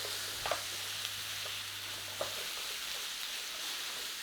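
Chopped onions, garlic, carrots and celery sizzling as they sauté in butter and oil in a frying pan, with a few faint clicks.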